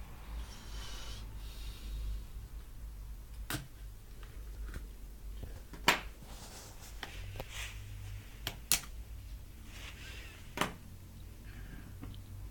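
A handful of sharp clicks, a close pair among them, with soft rubbing between them, over a steady low hum.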